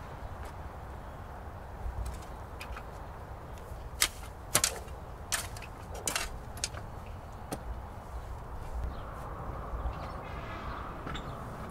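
Outdoor background with a steady low rumble and a handful of sharp clicks or taps between about four and eight seconds in.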